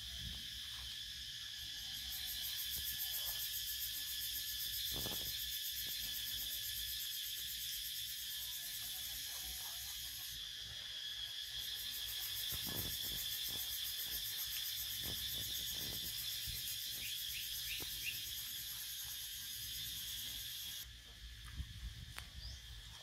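Steady high-pitched insect chorus with a fast pulsing trill, which drops away near the end.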